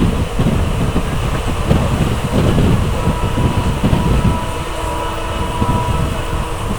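A passenger train running along the track: a steady loud rumble with many small knocks from the wheels. A faint, thin, steady whine comes in about halfway through and fades near the end.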